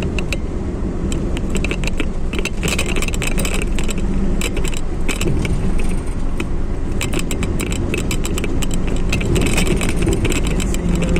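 Car driving on a road, heard from inside the cabin: a steady engine and road rumble, with many quick, irregular clinking rattles over it.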